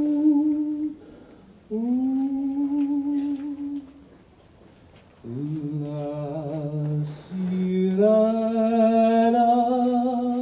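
A voice humming long, wordless, held notes one after another with short pauses between them. A lower, wavering note comes about the middle, and the last note is held steady.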